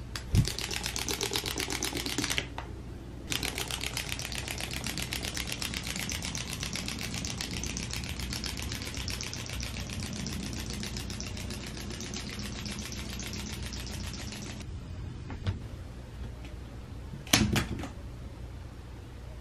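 Wind-up hopping bunny toy: fast ratcheting clicks for about two seconds as it is wound. After a short pause, its spring mechanism clatters with fast, even clicking for about eleven seconds, then stops. A short bump comes near the end.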